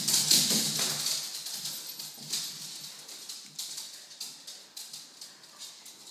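Small dogs' claws clicking and skittering on a bare laminate floor as they run and play, dense in the first second and thinning to scattered taps.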